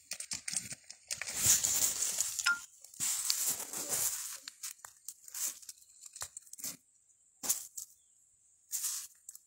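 Dry branches and dead leaves crackling and rustling underfoot in irregular bursts, mostly quiet over the last few seconds apart from a few short snaps.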